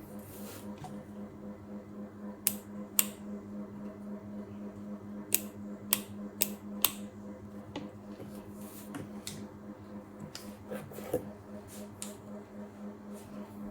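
Scattered sharp clicks and light handling noise of hard parts being picked up and fitted, over a steady low hum.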